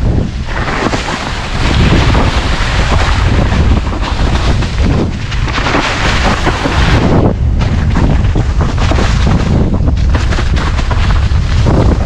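Strong wind buffeting the microphone: a loud, continuous rumbling noise that swells and eases in gusts every few seconds.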